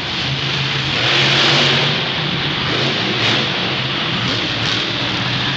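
Monster truck engines, supercharged big-block V8s, revving on the arena floor, a loud continuous roar in a large echoing indoor arena that swells about a second in and again just past three seconds.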